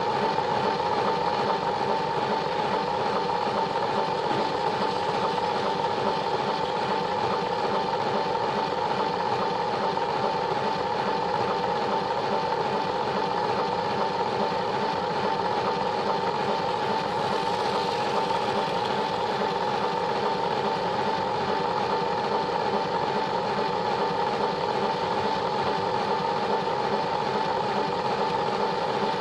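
Plarail toy train's small battery motor and gearbox whirring steadily as the train runs along plastic track, heard close up from a camera riding on the train.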